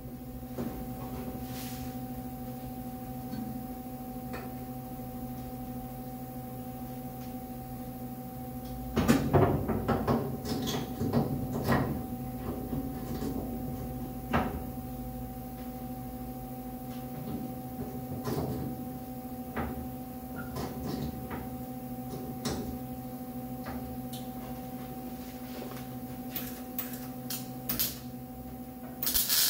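Steady electrical hum of a welder between welds, with clunks and rattles of metal being handled about nine to twelve seconds in and a few single knocks after. Right at the end the crackle of spot welding on the sheet-metal trunk channel starts.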